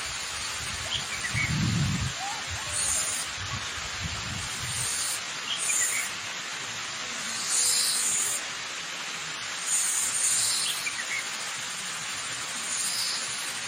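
Waterfall rushing steadily, with birds chirping in short high calls every few seconds. A brief low rumble comes about two seconds in.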